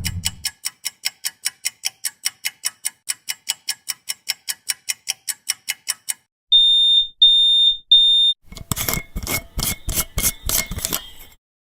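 An alarm sequence in three parts. First a fast, even run of ticks, about five a second, for about six seconds. Then three high, steady beeps. Then a loud, rapid ringing rattle that lasts a couple of seconds and stops.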